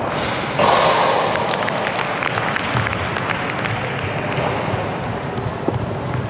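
Basketball game play on a hall court: a ball bouncing and short, high sneaker squeaks on the floor, with a sudden loud burst of noise just over half a second in.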